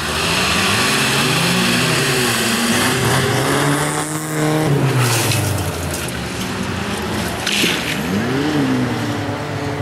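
Several bilcross race cars running together, their engines revving up and down through gear changes, with a brief burst of noise about three quarters of the way through.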